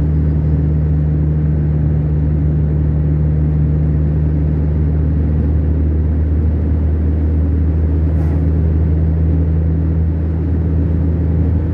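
Steady low drone of a car's engine and tyres on asphalt, heard from inside the cabin while driving at a constant speed. About eight seconds in there is a brief faint hiss.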